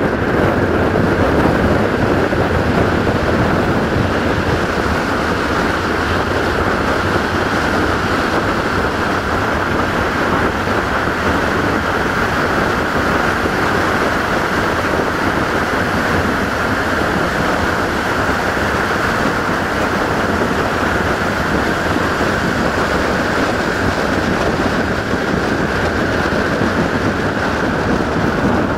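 Passenger train coaches running at speed, heard from an open window: a loud, steady rush of wind over the microphone mixed with the rumble of the wheels on the rails.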